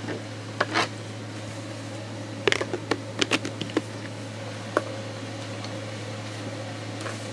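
Steady low hum, with scattered small clicks and taps of handling against a plastic enclosure, bunched together about two and a half to four seconds in.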